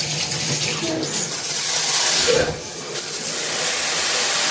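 Water spraying from a high-pressure shower head in a steady hiss, cutting back briefly about two and a half seconds in before resuming.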